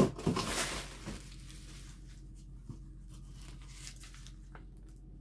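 Plastic packing material, bubble wrap and a thin plastic sheet, rustling and crinkling as it is pulled back inside a cardboard guitar box. A loud rustle at the start, then fainter crinkles and light ticks that die away after about four seconds.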